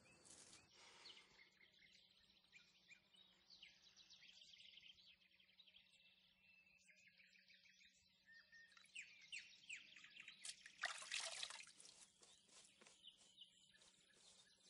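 Faint woodland birdsong, many short chirps and twitters overlapping. About eleven seconds in there is a brief, louder rush of noise.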